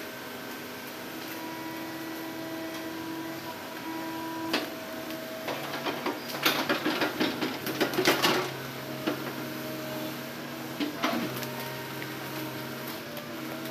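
Hitachi hydraulic excavator's diesel engine running steadily while the boom and bucket move, its note shifting a couple of times. A cluster of sharp clattering knocks, the loudest sounds here, comes about six to eight seconds in, with single knocks a little before and after.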